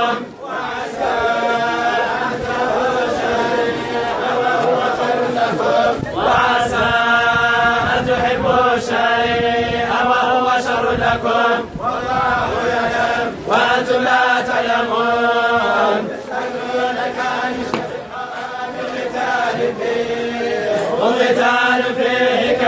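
A large group of men chanting Quranic verses in unison, their voices held together in long, drawn-out phrases.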